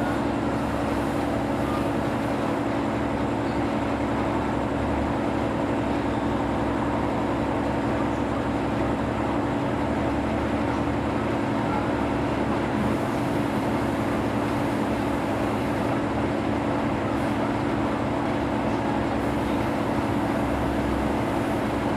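Steady low machine hum.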